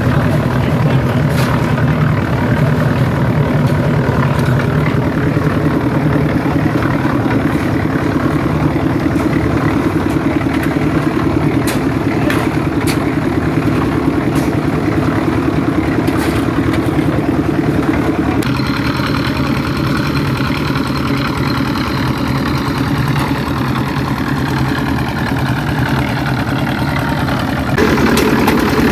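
Engine of construction machinery running steadily at a concrete slab pour, its tone shifting about two-thirds of the way in and again near the end, with scattered clicks and clatter over it.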